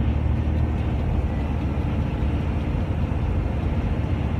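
Steady low rumble of engine and road noise inside a vehicle's cab at highway speed, with a faint steady high whine.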